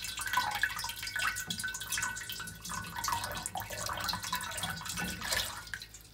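Drain water trickling and splashing out of an opened plastic P-trap into a stainless steel bowl, dying away near the end. The water passing freely through the trap shows the trap itself is clear and the clog lies further down the drain.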